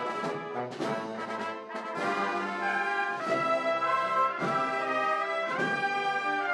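A Spanish banda de música playing a Holy Week procession march, led by the brass. Steady beats mark the first half, and long held chords follow from about three seconds in.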